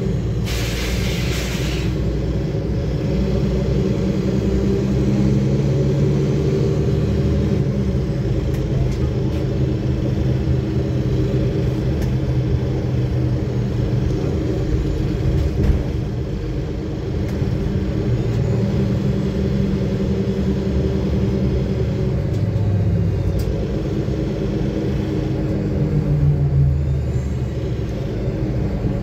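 Interior of a 2009 Nova Bus city bus under way: the engine drones low with road rumble, its pitch rising and falling several times as the bus speeds up and slows. A short hiss of air comes about half a second in.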